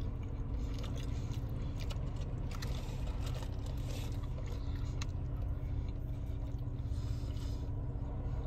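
Steady low rumble inside a parked car's cabin, with faint scattered rustles and clicks as people eat fast food in their seats.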